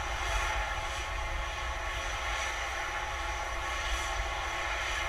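Steady rushing roar with a deep rumble underneath, from the SpaceX Starhopper prototype venting gas just after landing its hop. It begins to fade near the end.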